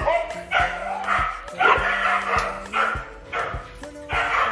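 Siberian huskies calling behind a wire pen gate, a string of about eight short pitched calls, one every half second or so.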